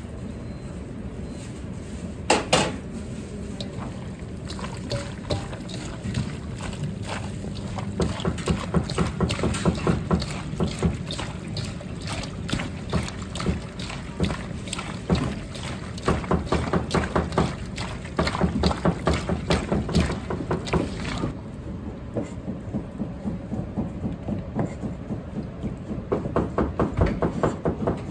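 Gloved hands kneading and squeezing raw chicken pieces in a sticky garlic, ginger and soy marinade in a stainless steel bowl: quick wet squelching and slapping, several strokes a second, in long runs starting several seconds in, over a steady low hum. One sharp knock about two seconds in.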